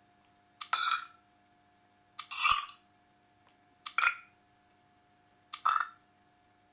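Recorded belches played back one by one from a burping soundboard app: four short burps about a second and a half apart, each starting with a sharp click.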